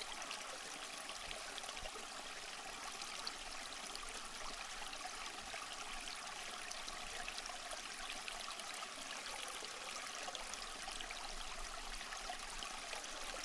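A stream of water flowing steadily, a faint even babble and trickle.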